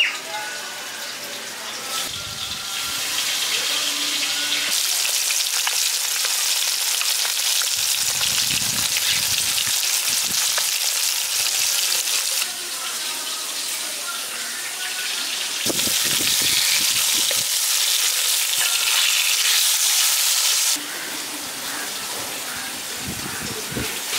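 Pieces of katla fish, rubbed with salt and turmeric, sizzling as they shallow-fry in hot mustard oil in a kadai. The sizzle builds over the first few seconds, then steps louder and quieter abruptly a few times.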